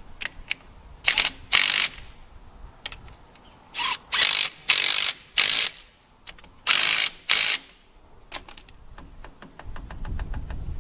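Socket ratchet with a 17 mm socket clicking in quick bursts of dense clicking, eight in all, as bolts are run in; near the end it slows to a string of separate, evenly spaced clicks.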